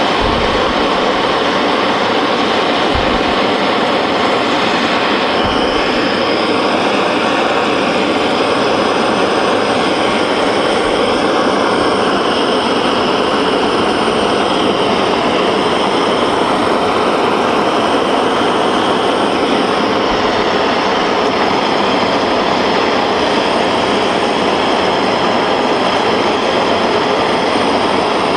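Handheld gas torch burning with a loud, steady hiss as its flame heats a tinned, fluxed cylinder joint for soft soldering.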